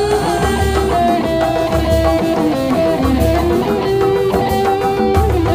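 Loud procession music for a Sundanese Benjang parade: a held, wavering melody over a deep bass that comes in pulses about once a second.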